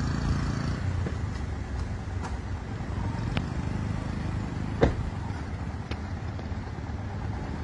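Motor vehicle engine running with a steady low rumble, with a sharp click about five seconds in.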